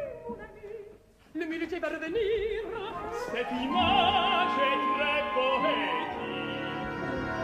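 Operatic singing in French with orchestra: a tenor and a mezzo-soprano trading lines, their voices wavering with vibrato. The sound drops almost to a hush about a second in, then the singing resumes, with a long held note from about four seconds.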